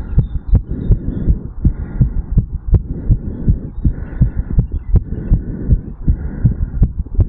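Human heartbeat heard through a chest pickup over the mitral valve area: a quick, even run of low thumps, several each second.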